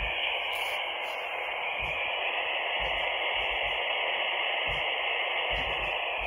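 Steady FM static hissing from a Retevis handheld VHF/UHF transceiver's speaker while it receives on the Gloucester repeater's channel, with a narrow, tinny tone.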